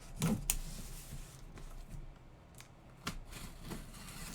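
A cardboard box being opened by hand: a scatter of short scrapes, rustles and taps of cardboard and packing, the loudest just after the start.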